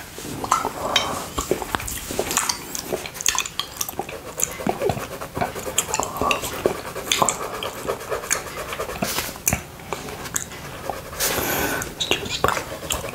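Close, wet licking and lip smacks of a tongue working over a glass plate coated in buckwheat honey, with irregular sticky clicks throughout.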